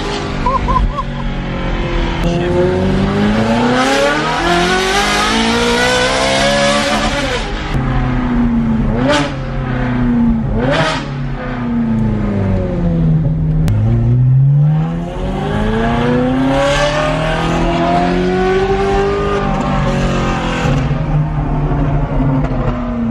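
Ferrari F430's V8 with a straight-piped exhaust, heard from inside the cabin while the car accelerates hard. The revs climb for several seconds and drop, two short sharp rev spikes follow about two seconds apart, the revs fall away, then a second long climb eases off near the end.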